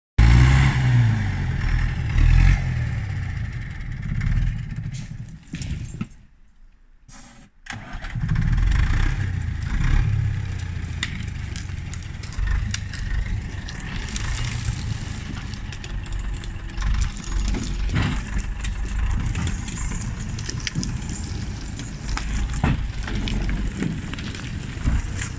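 LKT forestry skidder's diesel engine running hard under load as it works up a steep slope with logs on its rear, rising and falling in revs, with scattered clanks and cracks. Partway through the sound drops away almost completely for a couple of seconds, then the engine comes back up.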